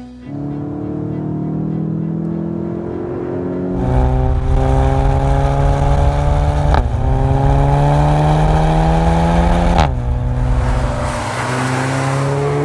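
Volkswagen Golf 7 GTI's 2.0-litre turbocharged four-cylinder breathing through a REMUS aftermarket exhaust, accelerating hard through the gears. The engine note climbs, gets louder about four seconds in, drops sharply at an upshift about seven seconds in, climbs again, drops once more near ten seconds, then runs steadier and quieter.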